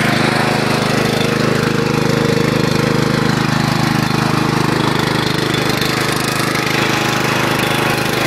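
Riding lawn mower's engine running steadily on throttle as the mower pushes through mud.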